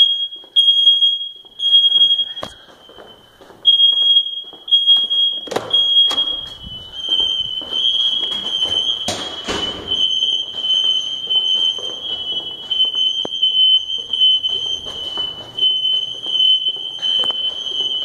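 Interconnected Kidde/Firex smoke alarms sounding a false alarm with a loud, high-pitched beeping, at first in groups of three beeps with a short pause. From about seven seconds in, several units sound out of step with one another, so the beeps run together into an almost unbroken shrill tone.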